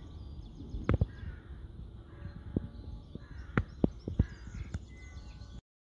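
A crow cawing repeatedly in the background over a low rumble, with several sharp clicks, the loudest about a second in and again around three and a half to five seconds in.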